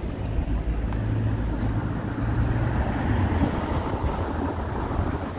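Steady low rumble of a motor vehicle engine running, with a noisy wash over it.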